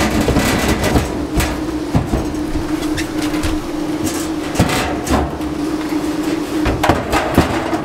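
Sheet-metal RV furnace being wrestled out of its wall opening: the metal housing scrapes and rattles, with several sharp knocks, over a steady hum.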